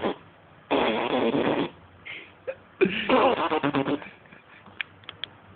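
A baby blowing raspberries, lips fluttering in two bursts of about a second each, with a few small mouth clicks near the end.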